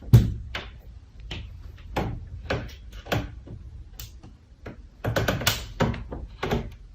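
An irregular series of sharp knocks and taps, coming closer together near the end.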